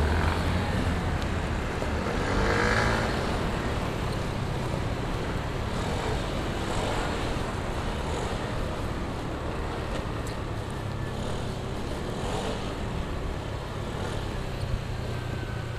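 Motorcycle riding through city traffic: its engine runs steadily under a constant rush of wind and road noise, with other vehicles going by.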